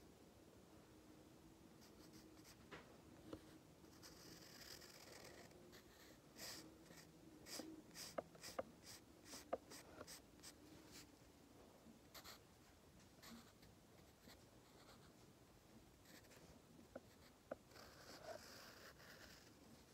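Pencil drawing on a spiral sketchbook page: faint scratching strokes, with a cluster of short quick strokes in the middle.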